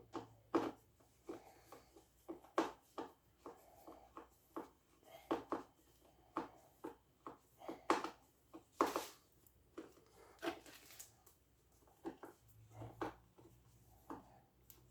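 Irregular clicks and knocks of fan parts being handled and fitted together by hand, several sharp taps a second with short pauses.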